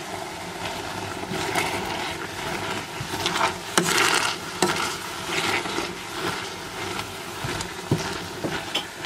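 Metal potato masher pressing down into soft stewed apple chunks in a stainless steel pot, with irregular squelches and short knocks of the masher against the pot, the stage of mashing apples into apple sauce.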